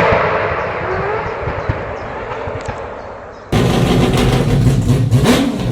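Racing car engine, the Mazda 787B's four-rotor R26B Wankel, fading away after a high-revving pass. About three and a half seconds in, it cuts suddenly to a loud, low, rough engine sound close by.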